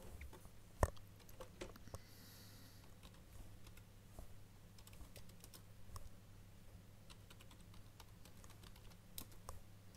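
Typing on a computer keyboard: quiet, irregular key clicks, with one louder click about a second in, over a faint steady hum.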